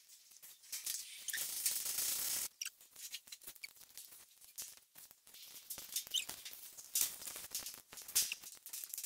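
Fingers picking at and peeling flakes off a painted board: many small scratches and crackles, with one longer rasping peel between about one and two and a half seconds in.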